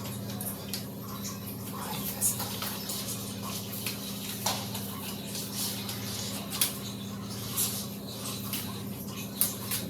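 Scattered soft clicks and crunches of someone eating a snack slowly and carefully, trying to make no noise, over a steady low hum.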